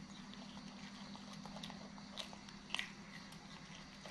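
Pet monkeys biting and chewing raw green beans: faint, scattered crisp crunches with a couple of sharper snaps a little past the middle, over a low steady hum.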